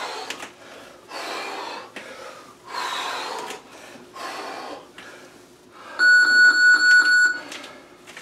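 Sharp, forceful exhales with each squat and kick, four in the first five seconds. Then, about six seconds in, an electronic interval timer beeps rapidly for about a second and a half, the loudest sound, marking the end of the round.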